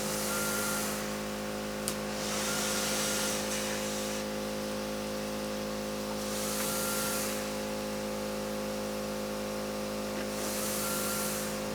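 A cough assist machine (mechanical insufflation-exsufflation device) running through a tracheostomy: its blower hums steadily while air rushes through the circuit in four cycles, one about every 4 seconds, each rush about a second long and starting with a short higher tone.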